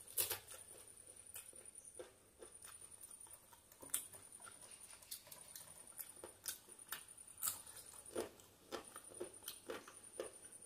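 Close-miked mouth sounds of a person eating chicken leg curry and rice by hand: irregular wet chewing and lip-smacking clicks, a few of them louder, as meat is bitten off the chicken leg bone and chewed.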